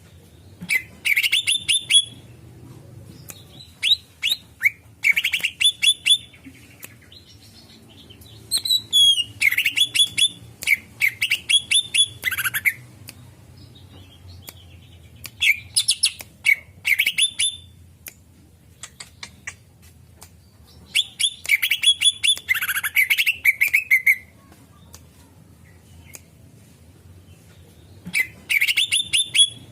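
Green leafbird (cucak ijo) singing in phrases of rapid, high chirping notes a second or a few seconds long, separated by pauses of a few seconds.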